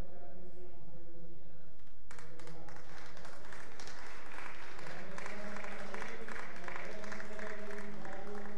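An announcer speaking over a microphone, then audience applause breaking out suddenly about two seconds in and going on, with the voice carrying on over the clapping.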